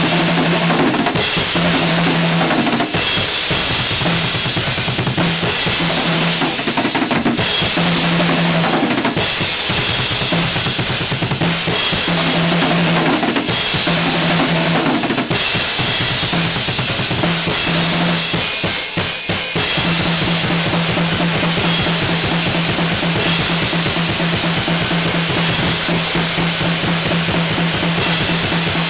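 Music with a steady drum kit beat and a low repeating note, which holds on continuously for the last third.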